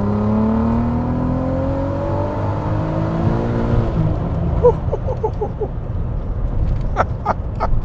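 Turbocharged 3.2-litre VR6 pulling hard under acceleration, its pitch climbing steadily for about four seconds before the revs fall away as the throttle closes. A few short chirps follow, then several sharp clicks near the end.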